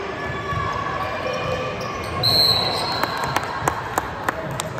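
A short blast of a referee's whistle about two seconds in, then a basketball dribbled on the gym's hardwood floor, about three bounces a second. Spectators' voices murmur underneath.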